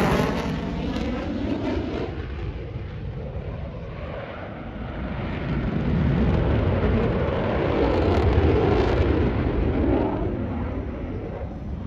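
Twin F119 turbofan jet engines of a US Air Force F-22 Raptor in a flying display. The loud jet noise fades away over the first few seconds, then builds again to a broad rumble about six to nine seconds in as the jet comes back around, and fades.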